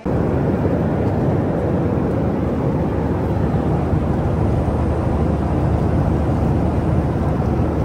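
Steady noise of a passenger jet heard from inside the cabin in flight: engines and airflow running at an even level.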